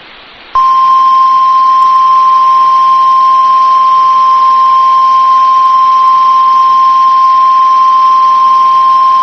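National Weather Service warning alarm tone, the single steady 1050-hertz tone of an EAS weather alert. It sounds loud and unbroken, starting about half a second in and lasting about nine seconds, announcing a severe thunderstorm warning.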